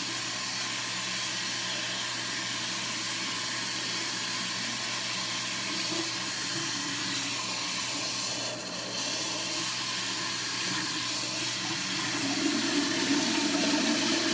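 Warm water running steadily from a faucet as hair is wetted under the stream.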